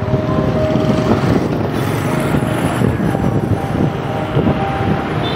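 Street traffic: a motor vehicle engine running close by over a dense, fluctuating low rumble.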